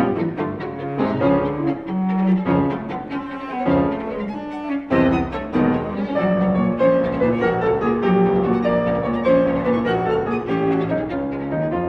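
Instrumental music of bowed strings, cello and violin, with some piano.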